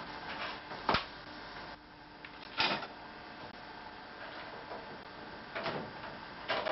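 Short knocks and clunks of a pedal crank being handled and fitted onto the autocycle's bottom bracket axle: about four separate strikes, the loudest about two and a half seconds in.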